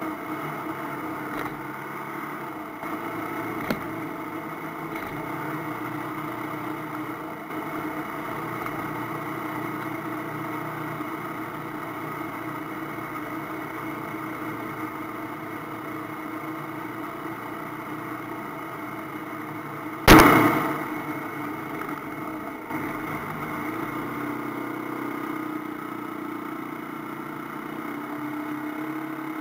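AKT TT 250 Adventour motorcycle engine running steadily while riding, with a single loud thump about twenty seconds in.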